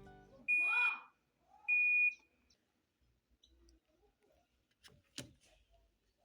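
Panasonic washing machine control panel beeping twice, two short high beeps about a second apart. Near the end come a couple of faint clicks.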